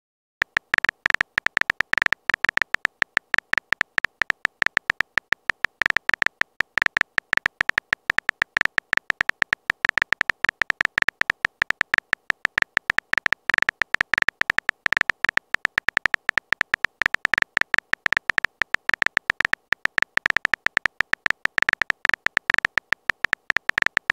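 Phone keyboard typing sound effect: a fast, uneven run of short, high-pitched key clicks, many a second, as a text message is typed out letter by letter. It starts about half a second in.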